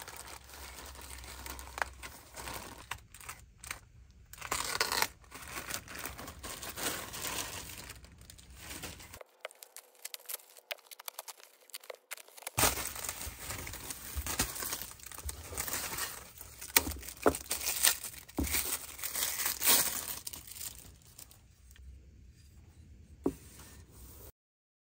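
Thin plastic packaging bag crinkling and tearing as it is slit open with a hobby knife and a carbon fiber landing gear is pulled out, with a few sharp taps in the second half.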